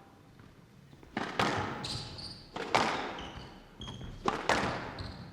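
Squash rally: the ball is struck by a racket and hits the wall, in pairs of sharp cracks about every second and a half, each followed by a short echo, with brief high squeaks from court shoes on the floor in between.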